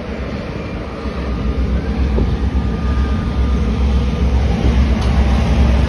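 B class diesel-electric locomotive B80 and a second diesel locomotive approaching at the head of a cement train, their engines a deep steady rumble growing louder as they near, with some wind on the microphone.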